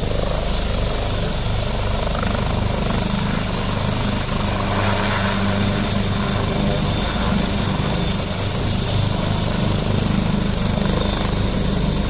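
Helicopter hovering low and settling to land: the main rotor beats steadily under a constant high-pitched turbine whine, swelling slightly partway through.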